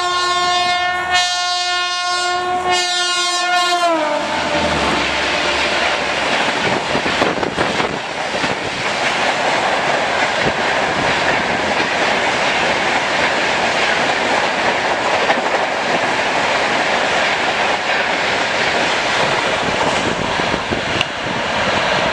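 Electric locomotive horn of an approaching WAP-7-hauled Shatabdi Express sounding long blasts with two brief breaks, sliding down in pitch as it ends about four seconds in. Then the loud, steady rush and rattle of the train's coach wheels on the rails as it passes close at speed.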